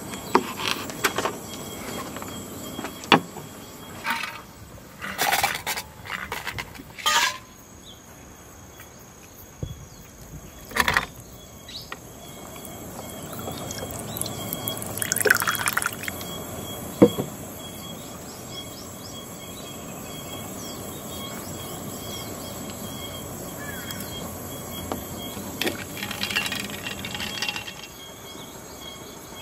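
A knife cutting small green shikuwasa citrus on a wooden plate, with a run of sharp knocks over the first several seconds. About fourteen seconds in, liquid is poured over ice into a stainless steel mug for a couple of seconds. Insects chirp steadily throughout.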